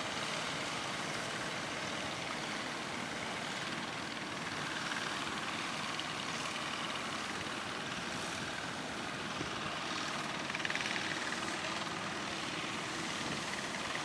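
Engine of a wooden fishing boat running at speed, heard through a steady wash of wind and waves.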